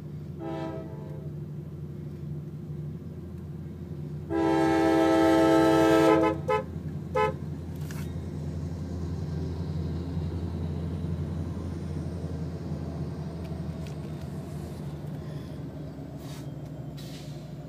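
Norfolk Southern diesel locomotive sounding its air horn at a grade crossing: a short blast about half a second in, then a loud long blast of about two seconds starting around four seconds in, followed quickly by two short toots. A steady low engine rumble runs underneath and swells a little as the locomotive passes.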